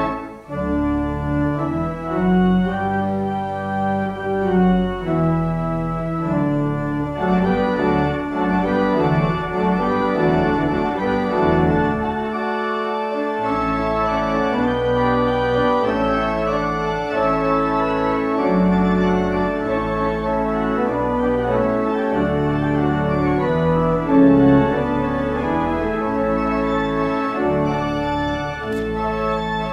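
Church organ playing held chords over a bass line, the chords changing every second or so. The bass drops out for about a second about halfway through.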